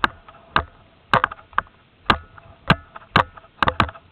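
A series of sharp knocks or cracks at an uneven pace, about three a second, some coming in quick pairs.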